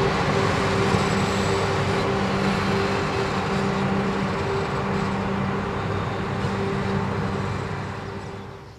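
DB class 171 electric locomotive running past at close range: steady running noise with a low hum and a higher steady tone. It fades as the locomotive moves away near the end.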